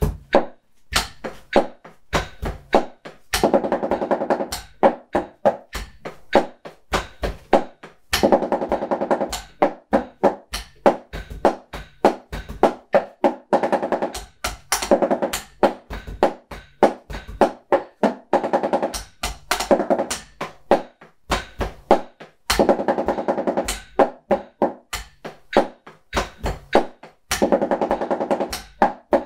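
Wooden drumsticks striking a drum practice pad damped by a towel laid over it, played at 100 bpm. Steady even strokes alternate about every five seconds with dense fast runs of sextuplets.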